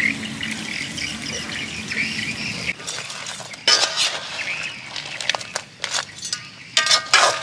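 A slotted metal spatula scraping and clinking against a metal wok while stir-frying crabs with chillies and green onions. There is a steady hiss for the first few seconds, then several sharp clanks and scrapes, the loudest about four seconds in and near the end.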